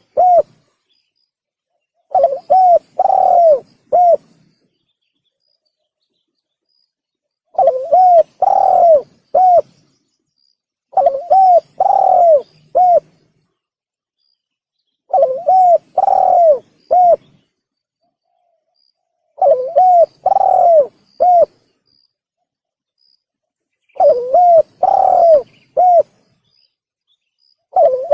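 Male spotted dove (tekukur) cooing in repeated phrases of four or five low coos, each phrase about two seconds long, separated by a few seconds of silence. This is a bird-lure call used to draw in tekukur.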